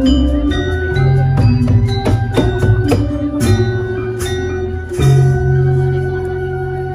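Javanese gamelan music: bronze metallophones and gongs struck in a running pattern with a kendang hand drum, the notes ringing on over a deep gong hum. A deep gong-like swell comes at the start and again about five seconds in.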